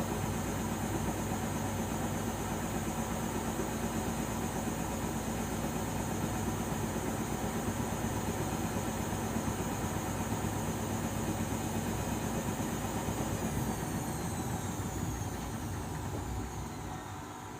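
Arçelik 5083 washing machine on an intermediate spin: the drum spins steadily with a motor hum and whine, then in the last few seconds the whine falls in pitch and the sound dies down as the spin slows.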